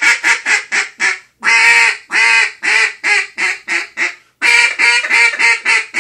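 Buck Gardner Mainstreet acrylic duck call blown in descending runs of hen-mallard quacks. There is a quick run of short quacks, then a long first note followed by quacks that get shorter and shorter, then a fresh run starting about four and a half seconds in.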